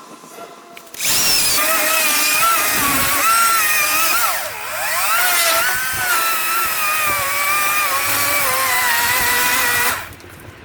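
Ego battery-powered chainsaw cutting thick branches: the electric motor and chain start about a second in with a high whine, the pitch dips sharply midway as the chain loads in the wood and recovers, then sags slowly under load before the saw stops near the end.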